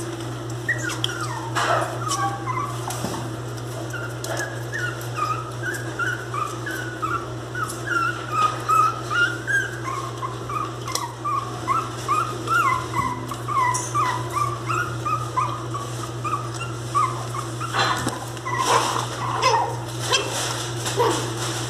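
Miniature pinscher whimpering: a long string of short, high whines, several a second, with a few sharper yelps near the end, over a steady low hum.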